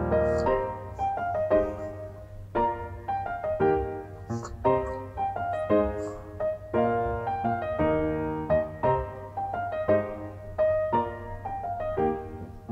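Soft solo piano background music: a slow, gentle melody of single notes and chords.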